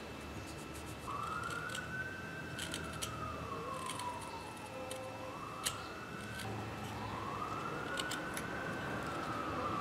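A siren wailing, its pitch slowly rising and falling in two long sweeps, starting about a second in. Over it, a few sharp clicks of a carving knife cutting into a wooden lure.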